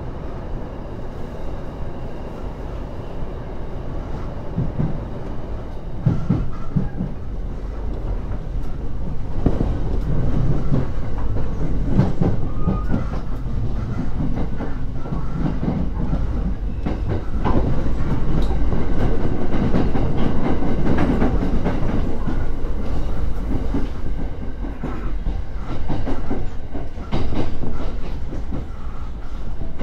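Joban Line rapid train heard from inside the carriage, running and slowing as it pulls into a station: a steady rumble of the car with irregular clacks of the wheels over rail joints and points.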